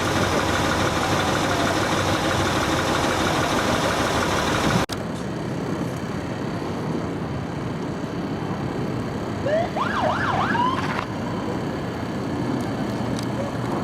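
Fire engine driving off under siren: a loud, dense wash of siren and engine noise that drops suddenly about five seconds in, then a few quick rising-and-falling siren sweeps around ten seconds in.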